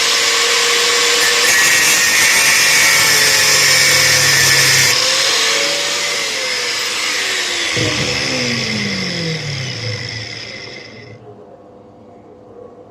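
Handheld power tool cutting into the aluminium engine block, with a loud hissing grind. About two-thirds of the way in it is let off and its motor winds down, the pitch falling until it stops.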